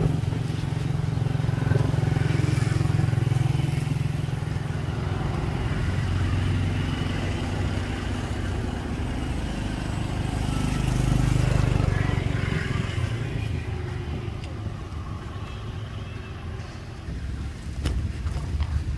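Low rumble of motor vehicle engines that swells twice, as vehicles pass, then fades toward the end.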